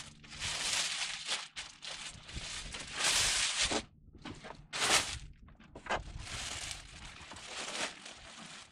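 A TV's plastic protective bag and wrapping rustling and crinkling in irregular bursts as the set is pulled out of it. It is loudest about three seconds in and again about five seconds in.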